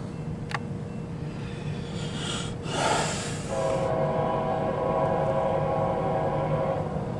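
Approaching CSX diesel locomotive rumbling low and steady, then a brief rush of noise and its air horn sounding one long, steady chord from about halfway in until near the end.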